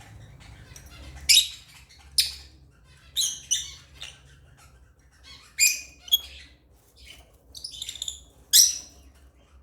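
African lovebirds chirping: short, shrill, high-pitched calls, about eight of them at irregular spacing, some in quick pairs.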